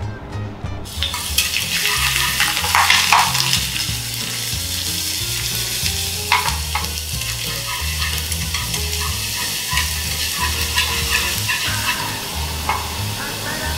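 Minced garlic frying in hot oil in a small saucepan, a steady sizzling hiss that starts about a second in, with a few sharp clinks or scrapes of a utensil in the pan.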